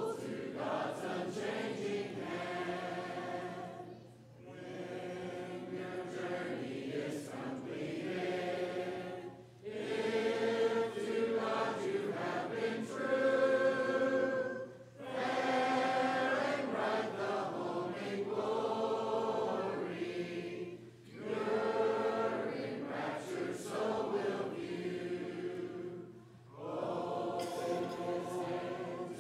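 A congregation singing a hymn unaccompanied, many voices together. The singing comes in phrases with a short breath pause about every five to six seconds.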